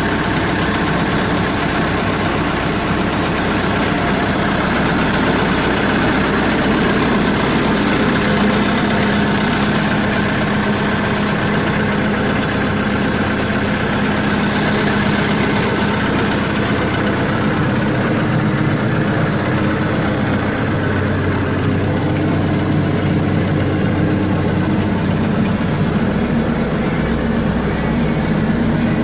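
Diesel engine of a 1995 Caterpillar 436B backhoe running steadily at idle, its tone shifting slightly a few times.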